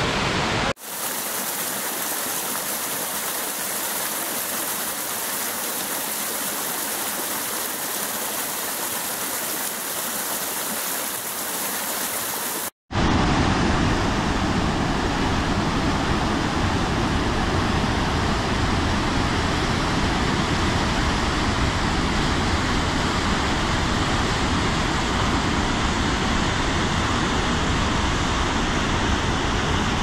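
Steady rush of falling water from a waterfall and cascading stream. About a second in, it switches to a thinner, hissier rush with little low end. Just before halfway it drops out for an instant and comes back as a fuller, deeper rush of water.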